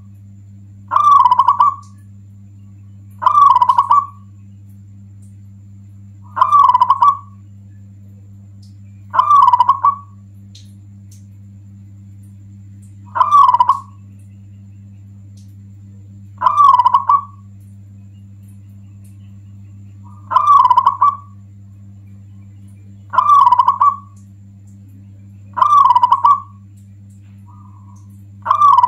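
Zebra dove (local perkutut) singing: short phrases of quick, rolling coos, repeated about every three seconds. A steady low hum runs underneath.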